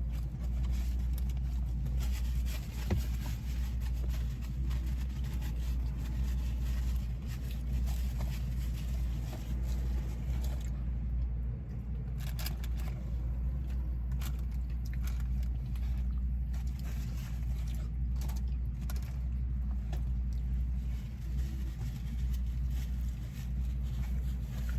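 Steady low rumble of a car's engine, heard inside the cabin, with scattered small clicks and rustles over it.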